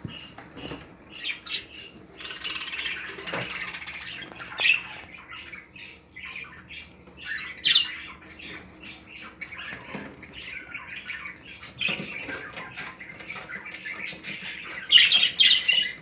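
Several budgerigars chattering and squawking continuously, with rapid warbling calls and louder sharp squawks, the loudest near the end.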